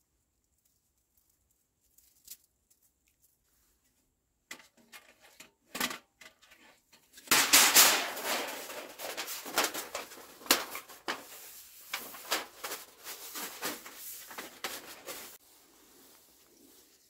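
Metal stovepipe of a Winnerwell tent stove scraping and clattering as it is handled and fitted, with many sharp knocks. It starts after a few soft handling clicks and stops shortly before the end.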